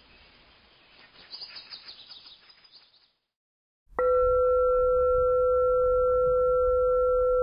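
Faint chirping fades out after about three seconds; after a short silence, a loud, steady ringing drone tone with a higher overtone starts abruptly about four seconds in, over a low rumble, and holds.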